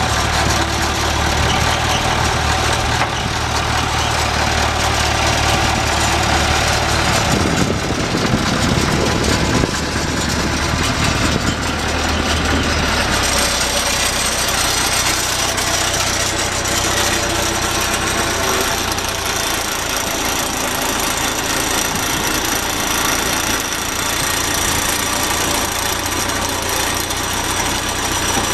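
Backhoe loader's diesel engine running steadily, its low tone shifting and getting rougher for a few seconds about eight seconds in, with a faint high whine after that.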